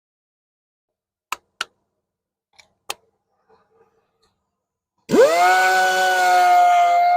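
A few sharp clicks, then a power sander starting with a sudden spin-up into a steady high whine about five seconds in.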